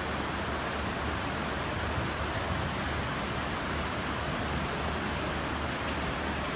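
Steady, even hiss of background noise with a low hum underneath and no speech.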